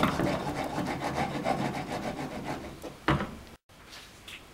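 A heavy frying pan of melting sugar for dry caramel, moved back and forth by its handle over the burner instead of stirred so the sugar doesn't burn. It gives a gritty scraping rub that stops about three seconds in, followed by a short knock.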